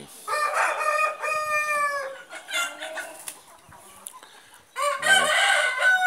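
Roosters crowing: two long crows, the first just after the start and the second about five seconds in, each held and falling off at the end.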